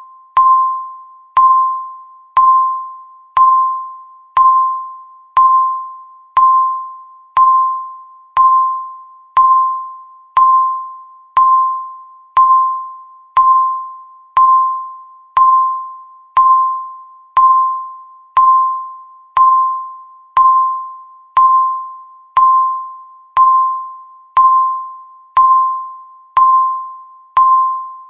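Countdown timer beeping once a second: a single steady-pitched electronic ding, each struck sharply and fading before the next, marking the seconds as the timer runs down.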